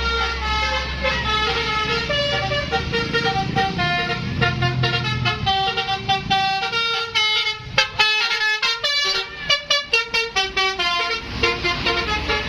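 Bus telolet horn: a bus's multi-tone horn playing a quick tune of changing notes, which breaks into fast, stuttering short toots from about the middle and slows again near the end. A low bus engine runs underneath, strongest in the first few seconds.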